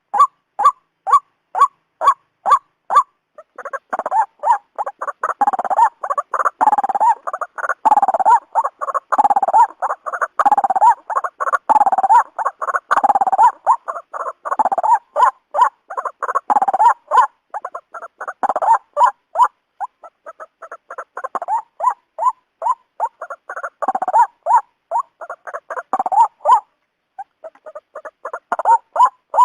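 White-breasted waterhen (ruak-ruak) calling. It starts as a run of evenly spaced single notes, about three a second. From about three seconds in it becomes a dense chorus of overlapping, repeated croaking calls that waver in pitch, and it breaks off briefly near the end.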